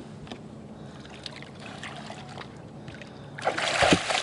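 A released muskie kicks free of a hand at the surface, a loud splash of water about three and a half seconds in. Before it, only a few faint knocks.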